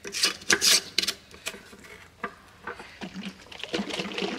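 Metal lid being screwed onto a glass mason jar: a run of sharp scraping clicks, loudest in the first second, then lighter clicks. Near the end, rough handling noise as the filled jar is lifted and tipped.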